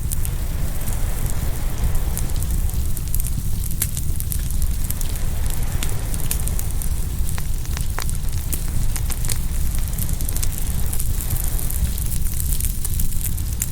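Open wood fire crackling and popping, with many sharp, irregular snaps over a steady hiss, and a steady low rumble of surf underneath.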